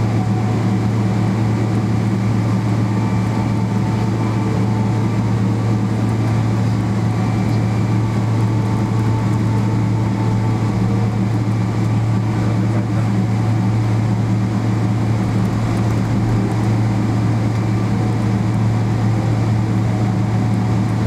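Steady low drone inside the cabin of a Boeing 777-300ER taxiing in after landing, its GE90-115B engines near idle. A strong, even hum with no change in level.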